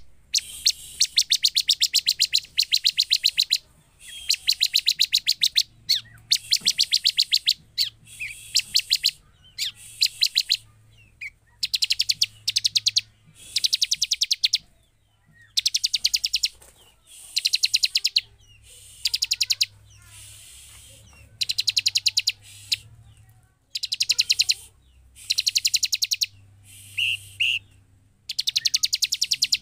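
Bar-winged prinia (ciblek) singing: bursts of very rapid, high-pitched notes, each a second or two long, repeated again and again with short pauses between.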